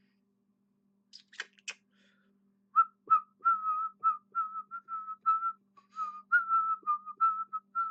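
A person whistling idly: a string of short notes hovering around one pitch, starting about three seconds in. It is preceded by a few quick clicks.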